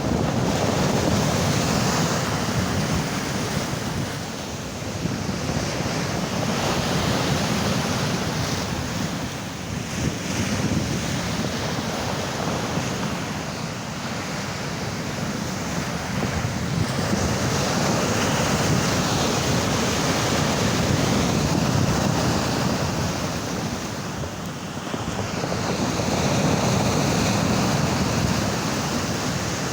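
Sea surf washing and breaking, with wind buffeting the microphone; the noise rises and falls every few seconds as the waves come in.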